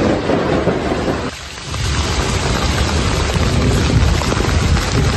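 Heavy rain pouring down as a steady, loud hiss with a low rumble underneath. The sound dips briefly about a second and a half in, then carries on as before.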